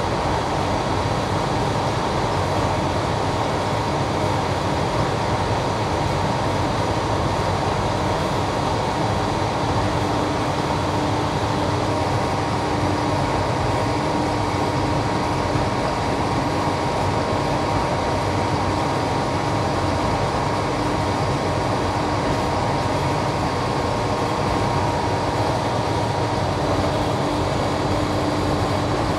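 Ocean Extrusions two-layer blown film extrusion plant running: a steady mechanical rumble from its drive motors, with a constant whine on top.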